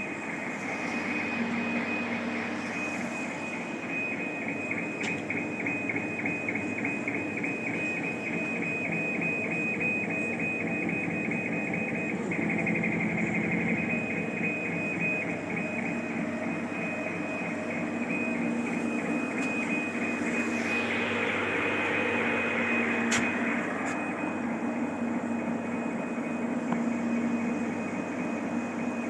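CO2 laser engraving machine running a job: a steady mix of fan and pump noise with a high, rapidly pulsing whine from the motors driving the laser head back and forth.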